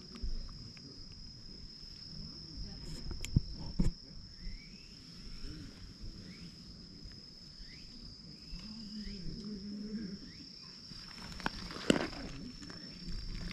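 Steady high-pitched drone of insects, with a few sharp crunches of loose gravel, the loudest about twelve seconds in, as a cat lying on it is stroked and rolls over.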